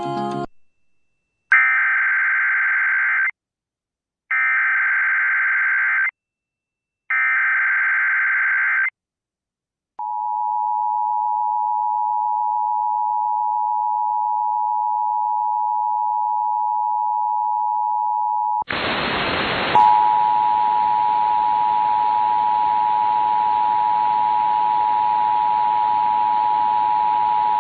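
Emergency Alert System test signal. First come three short bursts of the screeching digital SAME header data, then the steady two-tone attention signal (853 and 960 Hz). About 19 seconds in, a radio hiss comes up and the two-tone attention signal starts again over it.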